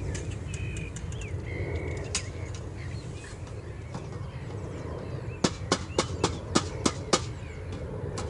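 Small birds chirping over a steady low outdoor rumble, with a quick run of about seven sharp clicks, some three a second, about five seconds in.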